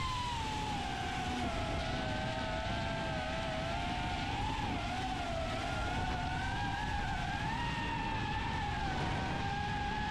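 DarwinFPV CineApe35 cinewhoop quadcopter's motors and ducted propellers whining in flight. The pitch falls just after the start, then wavers up and down with the throttle.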